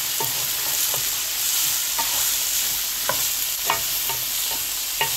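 Onion-and-spice masala sizzling in hot oil while a utensil stirs it, knocking and scraping against the pan about once a second, one knock louder than the rest about three and a half seconds in.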